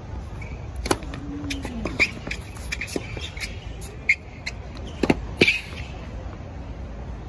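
Tennis balls struck by rackets and bouncing on a hard court during a practice rally: a series of sharp pops at uneven intervals, the loudest pair about five seconds in, over a steady low background rumble.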